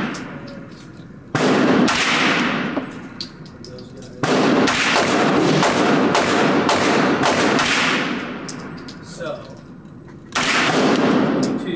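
Shots from an AR-style Kali-9 rifle on an indoor range, each ringing out in the range's echo. A few shots come about a second in, a quick string follows from about four to eight seconds, and another group comes near the end.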